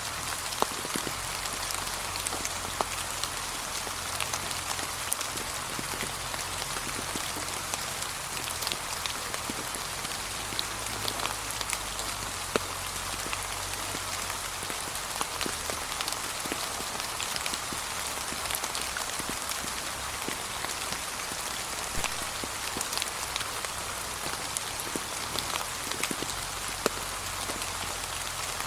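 Steady light rain pattering on a path of fallen autumn leaves, an even hiss sprinkled with sharper individual drop hits.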